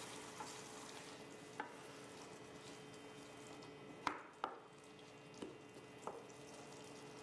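Wooden spoon stirring chickpeas and tomato sauce in a stainless steel pan, over a faint sizzle from the simmering mixture, with a few light knocks of the spoon against the pan.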